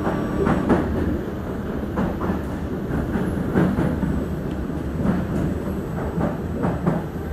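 The cabin of a Singapore MRT train running at speed: a steady low rumble of wheels on rail, with irregular sharp clacks from the wheels and track about eight times.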